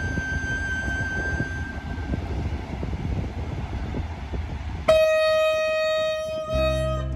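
Train rumbling through the station, then a locomotive horn sounds one steady blast of about two seconds near the end. Background music comes in as the horn stops.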